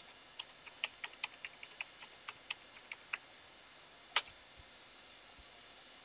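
Computer keyboard typing: a quick, uneven run of key clicks for about three seconds, then after a short pause one louder keystroke, the Enter key, which runs the command.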